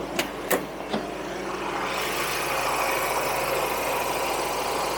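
Ford Everest's 2.0-litre turbo-diesel engine idling steadily, with three sharp clicks in the first second from the bonnet latch being worked. About two seconds in, the idle gets louder and stays so as the bonnet is raised.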